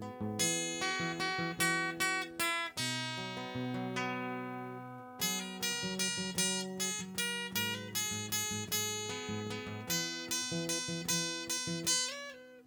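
Acoustic guitar played solo without singing, picking out a melody over strummed chords, each chord ringing and fading.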